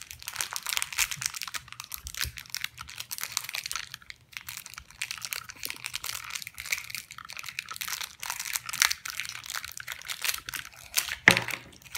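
Crinkling and crackling of a small clear plastic wrapper being handled and worked open by hand, with one sharp tap near the end.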